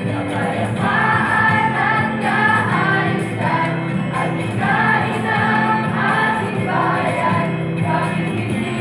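A mixed group of high-school students singing a jingle together as a choir, the melody moving in short phrases.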